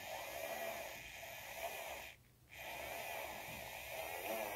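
Huachi battery-powered electric eraser's small motor whirring as its spinning eraser tip rubs pencil shading off paper, the pitch wavering up and down with the pressure. The sound cuts out briefly about two seconds in.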